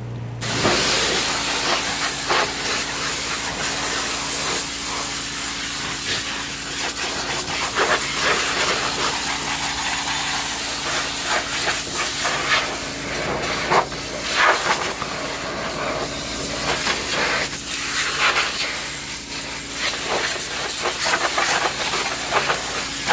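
Pressure washer spraying water onto a truck: a loud, steady hiss of spray with a steady low hum beneath it, the hiss swelling and dipping as the jet moves over the surfaces.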